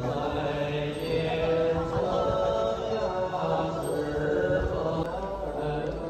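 Slow chanted mantra set to music: long held sung notes over a low, slowly shifting drone.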